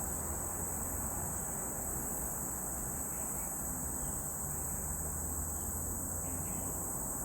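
Steady chorus of insects in the woods, an unbroken high-pitched drone, over a steady low rumble.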